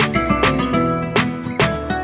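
Background music: a plucked guitar with a steady beat and sustained notes.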